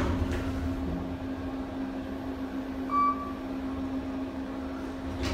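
Hydraulic Kone elevator running during its climb: a steady drone with low rumble from the car and pump. A single short beep sounds about three seconds in.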